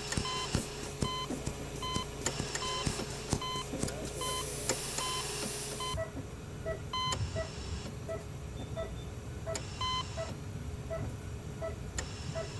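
Electronic beeping of clinic medical equipment: short high beeps at uneven intervals over a low hum and scattered clicks, with a hiss about four to six seconds in. From about six seconds in, a softer, lower pulse repeats steadily about twice a second.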